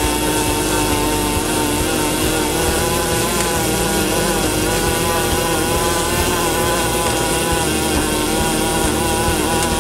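MIG welding arc burning continuously, a steady crackling hiss with a buzzing hum running through it.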